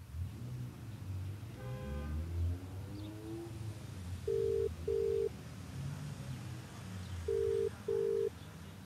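Telephone ringback tone: the called phone ringing, heard as two double rings about three seconds apart, each a pair of short, steady, low buzzing tones in the 'brr-brr' cadence used in Australia and Britain. The call is not yet answered.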